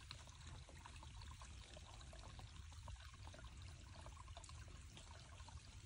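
Faint, steady trickle of a small stream.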